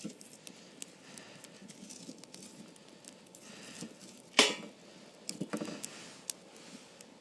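Campfire crackling, with scattered small pops, one sharp loud crack about four and a half seconds in, and a quick flurry of pops a second later.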